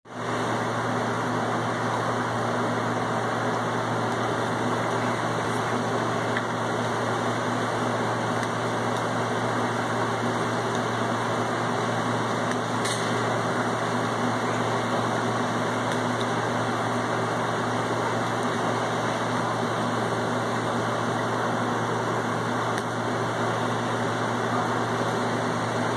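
Steady mechanical hum under an even rushing noise, unchanging throughout.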